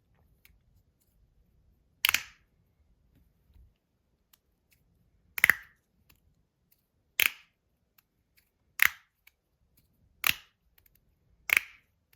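Magnus Rail V2 slider fidget being slid back and forth: six sharp clacks, about one every second and a half. With tape on it the clack is only slightly damped, about 3 decibels quieter, and still loud.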